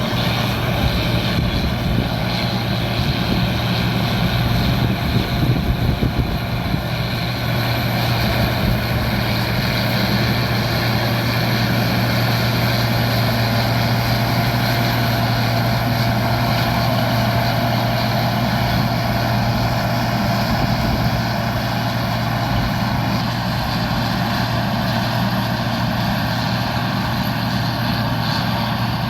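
Combine harvester running steadily while cutting soybeans: a constant engine drone with the whine of the threshing machinery over it.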